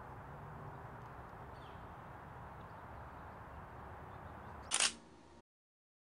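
Steady faint outdoor background hiss, then about five seconds in a brief burst of camera shutter clicks, after which the sound cuts off.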